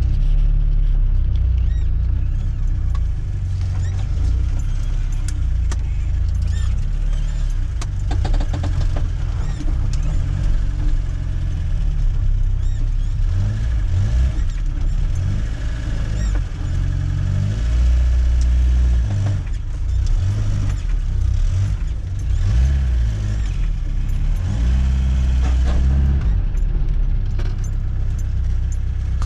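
Rear-wheel-drive car driving, its engine and drivetrain drone rising and falling in pitch. The owners say the rear differential hums, which they trace to a welded-up (locked) differential whose axle shaft rubbed against the welded plates.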